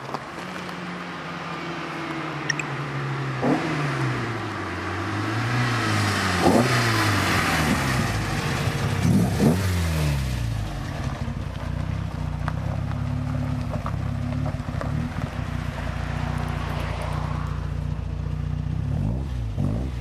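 Opel Ascona 400's 2.4-litre sixteen-valve four-cylinder engine revving up and down repeatedly as it approaches and grows louder, then about halfway through settling to a steady, low-rev running sound close by as the car creeps past.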